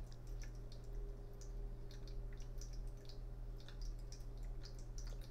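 Faint, irregular small clicks and ticks over a steady low hum.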